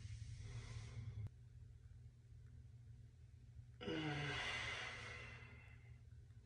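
A man breathing out: a soft breath at the start, then about four seconds in a long sigh whose voice falls in pitch and fades away.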